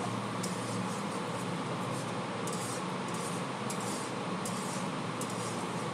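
Spice paste frying in oil in a karai while it is stirred with a spatula: a steady sizzle with a few light scrapes, over a low steady hum. The masala is being fried down until the oil separates from it.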